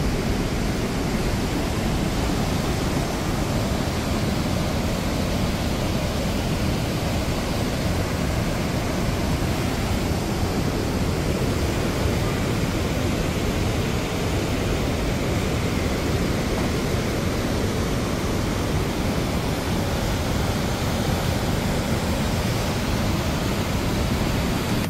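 Steady rushing of a large waterfall and the rapids below it, with swollen, muddy floodwater pouring through a rock gorge.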